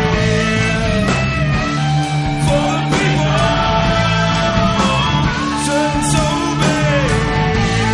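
Rock song with guitar and a singing voice, the video's backing soundtrack.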